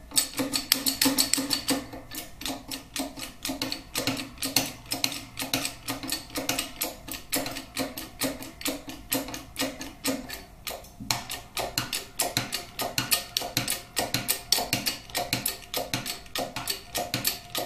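Shop press being worked to push a cam needle bearing out of a Harley-Davidson Twin Cam crankcase: a rapid, regular metallic clicking, about five a second, with a brief pause about eleven seconds in.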